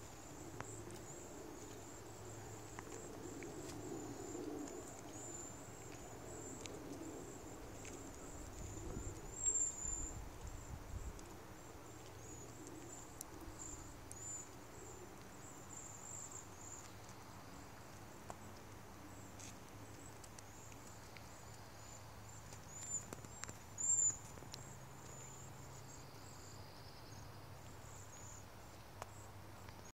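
A flock of small songbirds chirping: many short, high chirps keep overlapping, with a couple of louder ones now and then.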